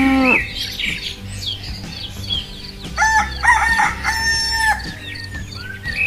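Farm animal sounds: the tail of a cow's moo right at the start, small birds chirping throughout, and a rooster crowing in three parts about three seconds in.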